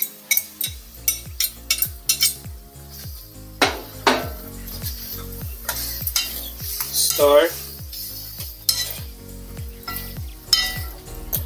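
A metal spoon clinks and scrapes against a frying pan while pieces of curry-seasoned beef are stirred, several clinks a second, with sizzling from the hot pan underneath.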